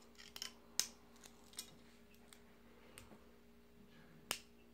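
A few sharp, small clicks and taps from handling the metal and plastic parts of a coil-building kit, over a faint steady hum. The loudest clicks come about a second in and near the end.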